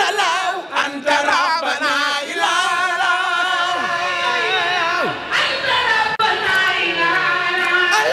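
A crowd of women chanting a zikr together, many voices in unison, with wavering, drawn-out melodic lines and short breaks between phrases.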